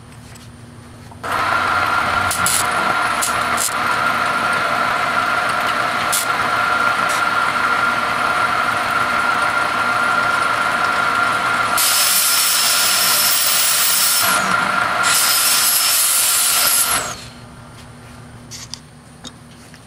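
Metal lathe starting about a second in and running with a steady whine while turning 1-inch 1018 cold-rolled steel round stock, then stopping. A harsher hiss comes over it twice near the end.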